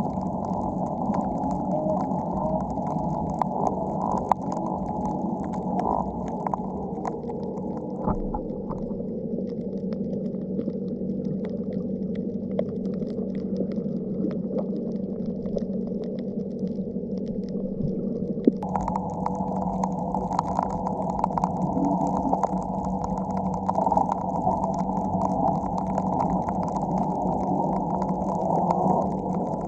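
Underwater ambience picked up by a submerged camera: a muffled low rumble with a steady hum, and faint crackling ticks above it.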